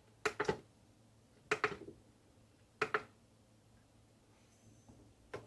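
Short sharp clicks and taps, mostly in pairs, from handling and adjusting a knife-edge sharpness tester to get it level.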